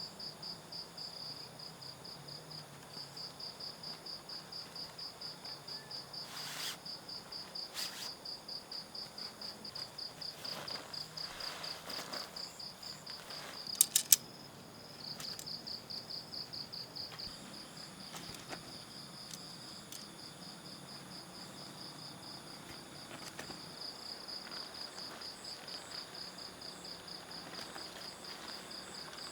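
Cricket chirring in a steady, rapid, high-pitched pulsing trill that breaks off briefly a few times. A couple of faint knocks sound a third of the way in, and two sharp clicks in quick succession, the loudest sounds, come about halfway through.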